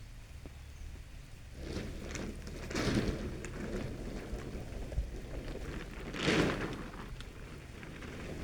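Rain falling, over a low steady rumble. Two louder swishing swells of noise come through, one about three seconds in and one about six seconds in.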